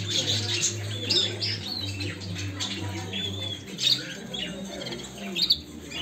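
A chorus of caged small birds, budgerigars and canaries among them, chirping and calling in short overlapping notes. A steady low hum runs beneath and stops about three and a half seconds in.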